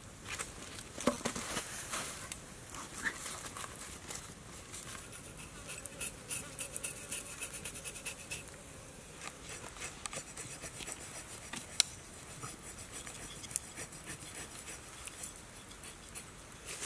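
Wood fire crackling, then a machete blade scraping over the skin of a pig carcass in short repeated strokes, with one sharp click about two-thirds of the way through. Insects buzz steadily behind it.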